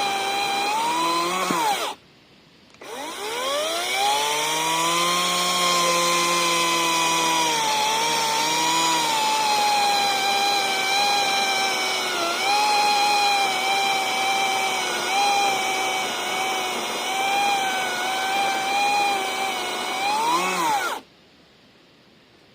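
Parkside PKSA 40-Li B2 40 V cordless electric chainsaw running with a steady high whine. It stops briefly about two seconds in, then spins back up with a rising pitch. It runs for about eighteen seconds, its pitch dipping now and then, before it cuts off near the end.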